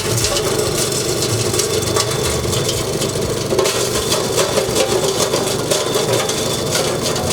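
Ice shaving machine running steadily, its motor humming under a continuous crackling grind.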